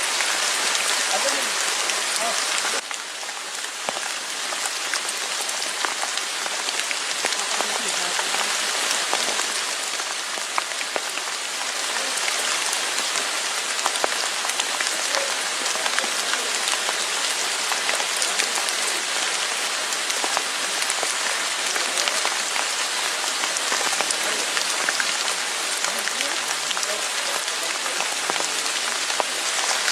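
Steady rain falling: an even hiss with scattered ticks of drops. It dips briefly about three seconds in, then keeps going.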